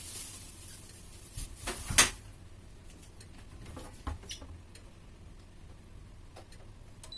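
A few scattered sharp clicks and light knocks over a faint hiss, with the loudest, a single sharp knock, about two seconds in.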